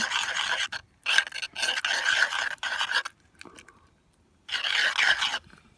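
A spoon scraping and stirring around a bowl, mixing borax activator into glue-and-cornstarch slime, in three bursts with short pauses between.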